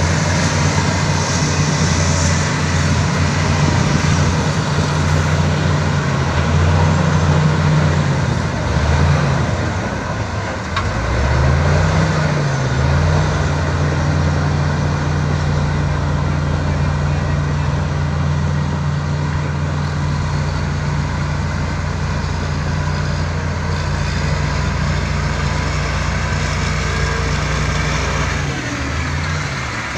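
Heavy diesel engine of an earthmoving machine running hard. Its pitch dips and recovers a few times, about nine to twelve seconds in and again near the end, as the engine speed changes.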